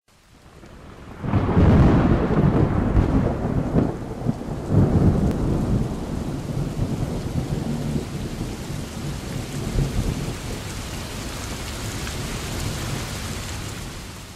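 Thunderstorm: a heavy rumble of thunder breaks in about a second in and rolls on for a few seconds over steady hard rain, which fades away near the end.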